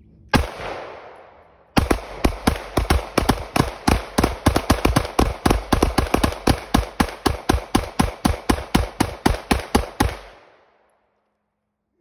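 Two pistols, a Glock with a 30-round magazine and a .40 S&W handgun, fired side by side: a single shot, then after a pause a fast, uneven string of about forty shots at roughly five a second, overlapping at times, stopping about ten seconds in.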